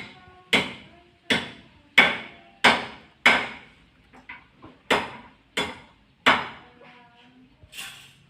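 A series of about ten sharp knocks, roughly one every two-thirds of a second, with a short break about four seconds in.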